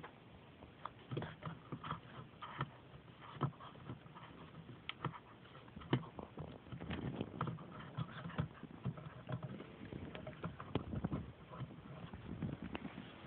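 Month-old Pungsan puppy chewing on a chair: irregular quiet clicks and short scrapes of its teeth, often several a second.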